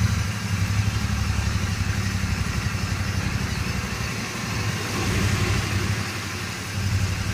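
Motorcycle engine running steadily at low road speed, heard from on the bike, with a faint hiss of wind and road over it. The engine sound swells a little about five seconds in and again near the end.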